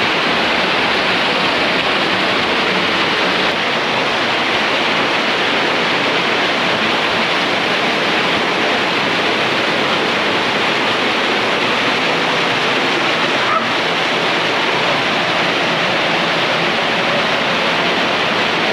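Small waterfall pouring through a narrow sandstone slot and splashing into a pool close by: a loud, steady rush of falling water.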